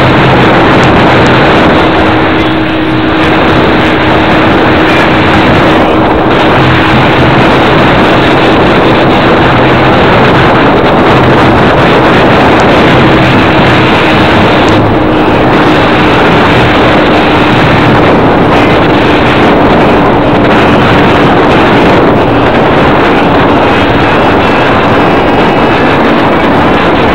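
Loud vehicle running noise: a steady engine drone that sags slightly in pitch, under heavy rushing noise.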